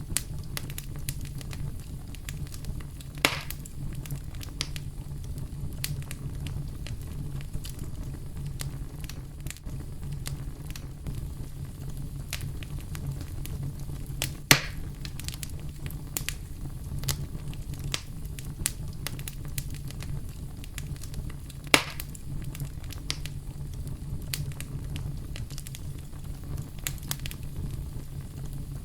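Campfire crackling, with many small snaps and three louder pops, over a steady deep brown-noise rumble.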